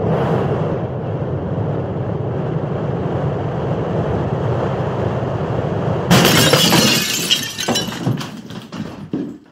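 A steady rushing noise, then about six seconds in a sudden loud crash as the DJI Mini 2 drone strikes a tree crown: a burst of crackling and breaking that breaks up into scattered cracks and fades over the last few seconds.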